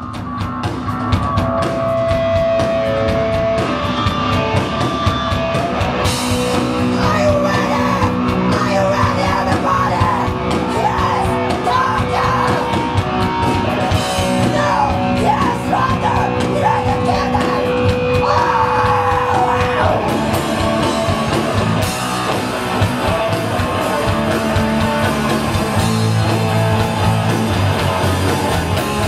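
Live heavy rock band playing loud, with yelled and sung vocals over the band. The music kicks in at the very start and runs on at full volume.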